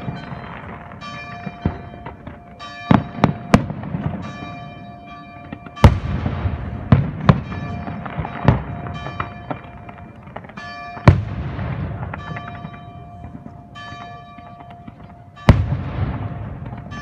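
Fireworks exploding: a continuous rumble of bursts broken by about seven sharp, loud bangs at irregular intervals, the loudest about six and eleven seconds in.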